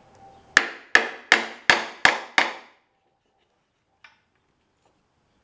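A plastic mallet striking a wooden block six times in quick succession, about three blows a second, each with a short ring. The block is driving the bent-over edge of an aircraft trim tab tighter against a steel bending bar.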